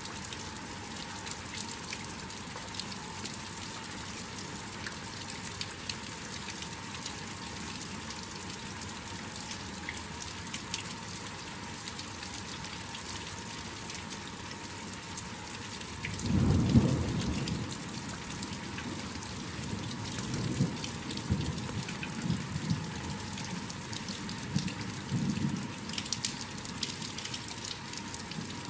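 Steady rain with scattered drips. About halfway through, a thunderclap breaks in with a deep rumble, the loudest sound here, followed by several seconds of lower rolling thunder.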